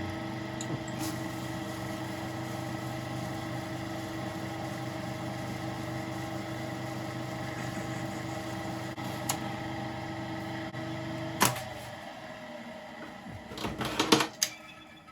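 Small metal lathe running steadily, turning a little off a new steel pin, then switched off about eleven seconds in; a few metal clatters and knocks follow near the end.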